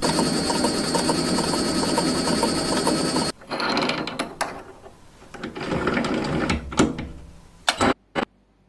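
Old electric potato peeler running with a steady mechanical whir and a regular ticking, then switched off about three seconds in. Scattered knocks and rubbing follow, with a brief hush near the end.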